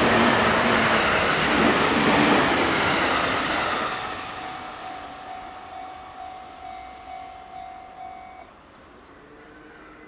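JR Central electric commuter train passing at full speed over a level crossing: loud wheel and running noise that fades away after about four seconds. The crossing's warning bell rings on in steady repeated dings and stops about eight and a half seconds in, once the train has cleared.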